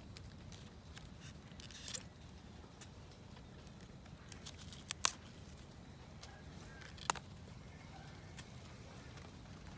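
Damaged succulent leaves snapping off the stem with crisp clicks: several in all, the sharpest about two, five (a quick pair) and seven seconds in, over a faint low background hum.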